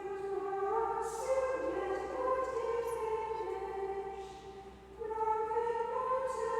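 A choir singing slow, sustained liturgical phrases, with a short breath pause about four and a half seconds in before the next phrase begins.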